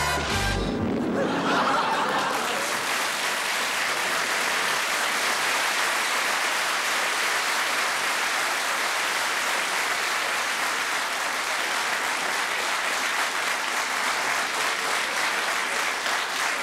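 Studio audience applauding steadily, after the last notes of a music cue in the first second.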